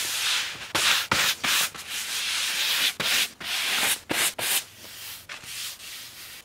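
Broom bristles sweeping frost and snow off a trampoline mat in repeated scratchy strokes, fainter over the last second or so.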